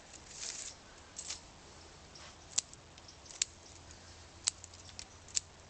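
Pruning scissors snipping small twigs and foliage off a guava bonsai: four sharp snips about a second apart, with a little leaf rustling in the first second or so.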